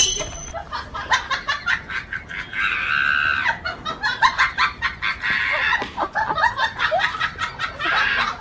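Chickens clucking and squawking: a stream of short, rapid clucks, with louder drawn-out squawks about three seconds in and again near the end.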